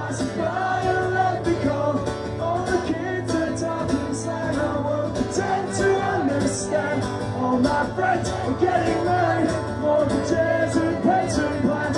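Live acoustic guitar strummed in a steady rhythm, with a man singing into the microphone.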